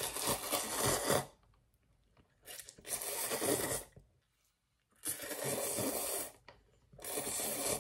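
Instant cup noodles slurped up through the lips, four long slurps of about a second each with short pauses between.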